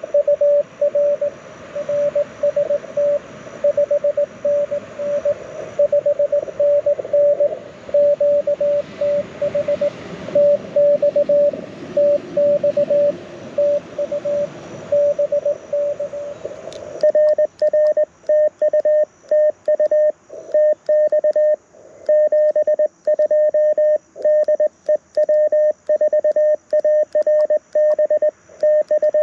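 Morse code (CW) tone near 600 Hz from a Mountain Topper MTR4B QRP transceiver through a small speaker. For about the first 17 seconds a code signal comes in over steady band hiss. Then the hiss cuts out and clean, crisp keying follows, with a click at each dot and dash: the radio's sidetone as the operator sends.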